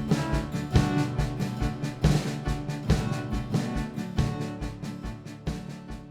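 Background music with a drum-kit beat and sustained instrument notes, fading out near the end.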